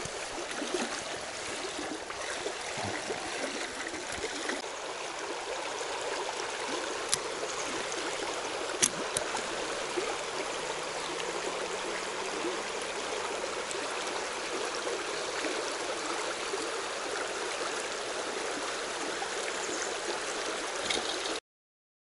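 Shallow mountain stream rushing steadily over a stony riffle, with two sharp clicks about seven and nine seconds in. The water sound cuts off suddenly just before the end.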